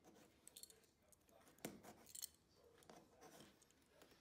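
Faint scraping and clicking of a carpet knife trimming the edge of a stair tread carpet, with a sharper click about one and a half seconds in and another about half a second later.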